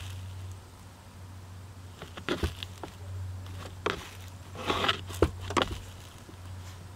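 Dry leaves and cabin air filter media crackling in short bursts as a flathead screwdriver pries into the squashed filter, leaves still trapped inside. A steady low hum runs underneath.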